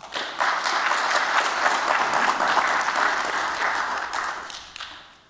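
Audience applauding: the clapping swells up right away, holds steady, then dies away over the last second or so.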